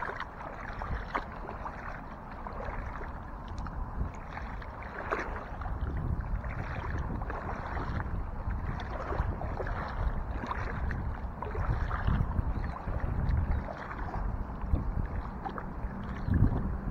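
Shallow seawater lapping and sloshing in small splashes, with wind rumbling on the microphone. A louder thump comes near the end.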